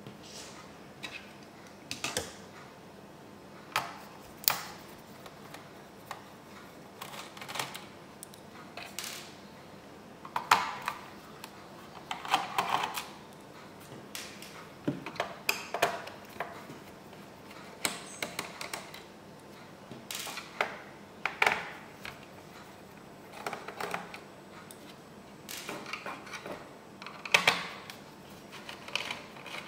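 Irregular light clicks and taps, a few with a short ring, from a screwdriver and hands handling the plastic case of an HP Pavilion dv6000 laptop as it is taken apart.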